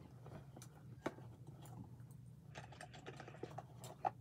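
Small hair clips being handled, making light scattered clicks and rustles, with a sharper click about a second in and another near the end.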